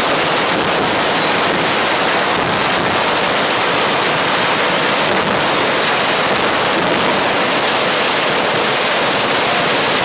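Massed machine-gun fire from many guns at once, blending into one dense, steady noise with no separate shots standing out.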